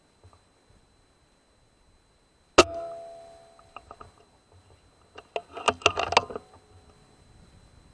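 A PCP air rifle fires once, a sharp crack with a short ringing tail, while sighting in on a paper target. About two and a half seconds later comes a quick run of metallic clicks and knocks as the action is worked to load the next pellet.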